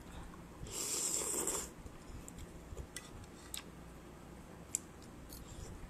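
A person slurping up a mouthful of soup noodles for about a second, followed by a few short, light clicks.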